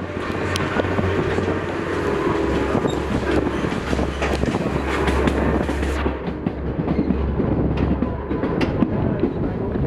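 Train rolling along the track: a steady rumble with a constant patter of wheel clicks over rail joints.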